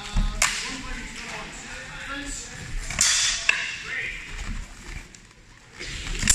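Sharp clashes of swords and bucklers in a sword-and-buckler fencing bout, with single strikes about half a second in, two close together around three seconds in, and another at the end, over the noise of a large hall.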